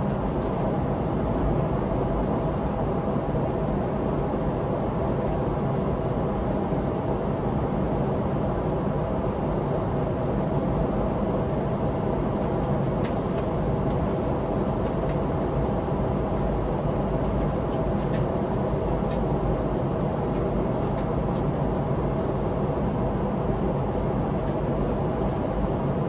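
Steady cabin noise of a Boeing 777-300ER airliner in flight: an even low rush of airflow and engine noise with a faint steady hum in it. A few faint clicks sound around the middle.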